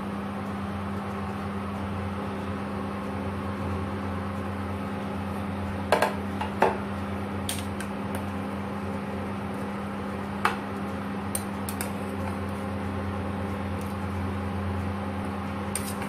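Stainless steel saucepan and ladle clinking a few times as rice porridge is served into a bowl, the loudest knocks about six seconds in and again near ten seconds. A steady low electric hum runs underneath.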